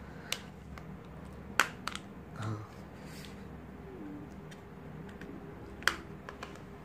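Sharp plastic clicks from a small keypad feature phone being handled in the hands: several separate clicks, the loudest about one and a half seconds in and again just before six seconds.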